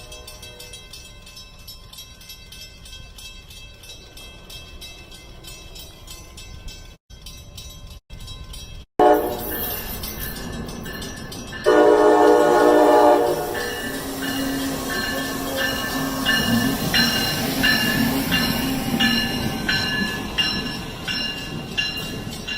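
Train sounds from clips cut together with brief silent gaps. A quieter, steady train sound runs for the first seven seconds or so. Then, about halfway through, a locomotive horn sounds loudly for about a second and a half, followed by a rapid, evenly repeating ringing over a low hum.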